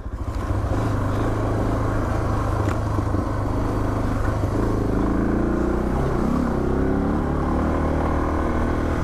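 Suzuki DR650's single-cylinder four-stroke engine running under way at low speed. Its note stays steady, then rises and dips a few times about halfway through.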